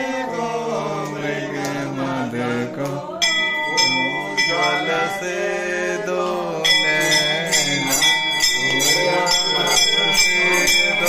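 A hanging brass temple bell rung over and over while several voices sing the aarti together. The bell strikes come thickest in the last third.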